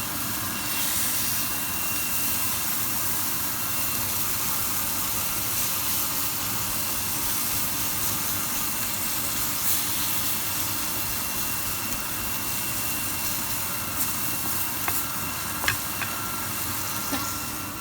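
Chicken steak frying in a pan, a steady sizzle, with a few small sharp clicks near the end.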